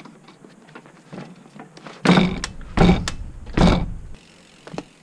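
Mountain bike being lifted out of a workstand and set down on a wooden deck: a few light clicks, then three loud knocks with rattling about two, three and three and a half seconds in.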